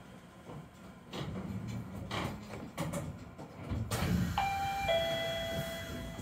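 Inside a Chiba Urban Monorail Type 0 car at the platform: scattered clicks and knocks, then about four seconds in an electronic two-note chime, a short higher note followed by a longer, lower one.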